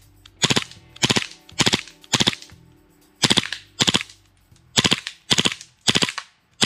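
Novritsch SSP18 gas blowback airsoft pistol firing on full auto in short bursts of a few rapid shots each, about ten bursts in all, with a brief pause near the middle.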